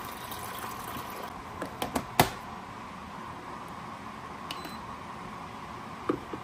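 Kitchen sounds of coffee being made: a few short clicks and clinks of cups and utensils over a steady appliance hum. The sharpest clink comes about two seconds in, and a couple more come near the end.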